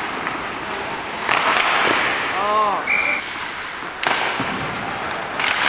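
Ice hockey play in a rink: skate blades scraping the ice under sharp clacks of sticks hitting the puck, loudest about a second in and again about four seconds in, with a short shout from a player in between.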